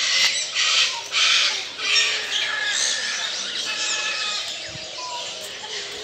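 Captive birds in a zoo aviary calling: a run of loud, harsh squawks over the first two seconds or so, then quieter chirps and short whistled notes.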